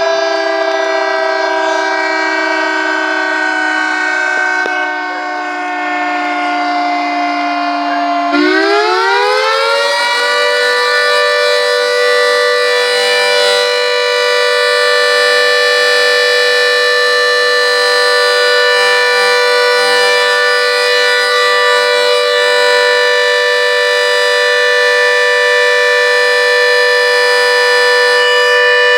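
Secomak siren sounding in a siren test: a steady tone that sweeps sharply up in pitch about eight seconds in, then holds a higher steady tone.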